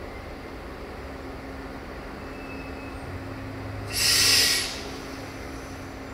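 Diesel engine of a Siemens Desiro VT642 diesel multiple unit running with a steady low hum. About four seconds in comes a short, loud hiss of released compressed air.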